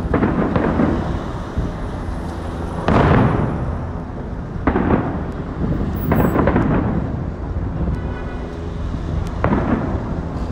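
Aerial fireworks bursting overhead: a string of booms, each echoing away, about five in ten seconds, the loudest about three seconds in.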